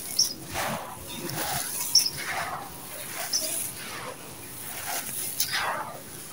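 Hands crunching, scooping and pouring a dusty, gritty sand-cement mix with small white stones: a run of irregular grainy crunches and trickles, with sharp clicks from the stones.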